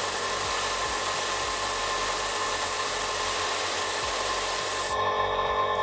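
Airbrush spraying thinned acrylic paint: a steady hiss of air that cuts off suddenly about five seconds in, leaving only faint steady tones.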